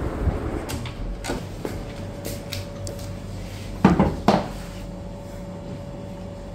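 Household handling clatter: a few light clicks and knocks, then two loud wooden knocks in quick succession a little past the middle, typical of a cupboard or door being opened and shut.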